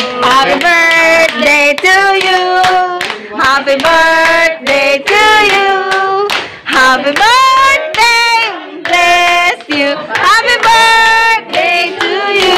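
A small group of people singing a song together in held notes, with hand clapping along.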